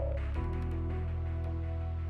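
Background music of held chords, changing to a new chord a little under half a second in.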